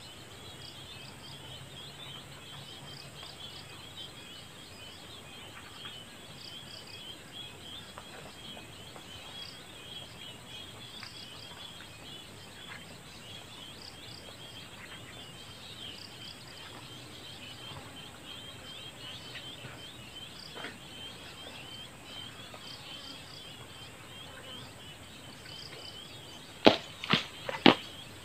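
Steady chorus of insects chirring, with a few faint ticks. Near the end, four sharp knocks in quick succession, much louder than the chorus.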